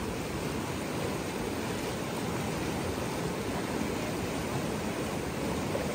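Fast-flowing mountain river rushing steadily over rocks and small rapids.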